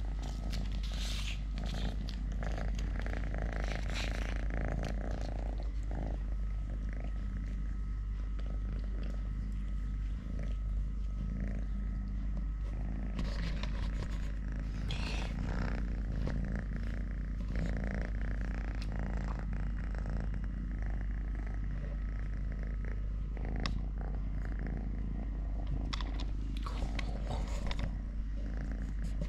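A kitten purring steadily, with brief scratchy noises now and then over it.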